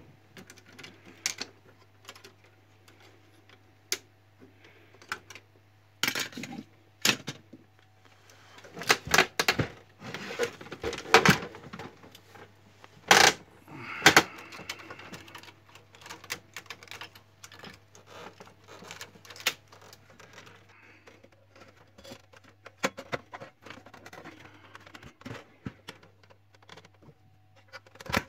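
Irregular clicks, knocks and rattles of plastic printer parts being handled and taken apart, busiest and loudest about halfway through, over a faint steady low hum.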